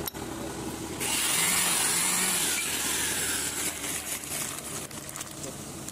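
A loud hissing noise that starts abruptly about a second in and fades away over a couple of seconds, followed by crinkling and rustling of a plastic parts packet being handled.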